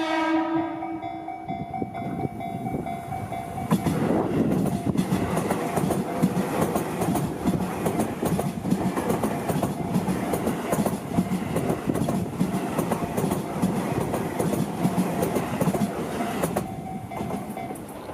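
Tobu Tojo Line electric train passing over a level crossing, its wheels clattering rhythmically over the rail joints, loud from about four seconds in until shortly before the end. The crossing's warning bell rings before the train arrives and is heard again near the end.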